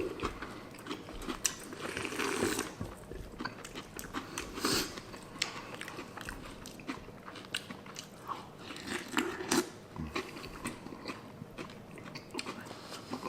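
Close-up chewing of mouthfuls of crunchy cereal in milk, with the hard Corn Pops crunching between the teeth. Irregular crunches and small clicks, with a few louder bites.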